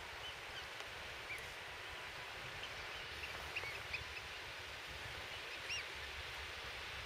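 Open-air seashore ambience: a steady hiss with a low, gusting rumble of wind, and short, high bird calls here and there, the clearest a little after three and four seconds in and a louder one near six seconds.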